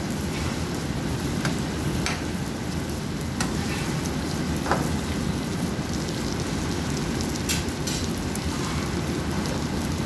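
Marinated chicken, potato chunks and marinade sizzling and bubbling steadily in a hot nonstick frying pan, in a brief sauté before simmering. A few light clicks of a metal spoon stirring against the pan.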